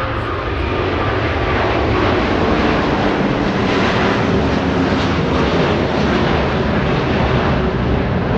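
Airbus A350-1000's two Rolls-Royce Trent XWB turbofans at takeoff thrust as the airliner climbs away after lift-off: a loud, steady jet rumble that swells slightly over the first couple of seconds.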